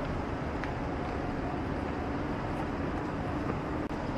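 Steady city street noise: a constant rumble of traffic and machinery beside an elevated railway line, with a faint low hum.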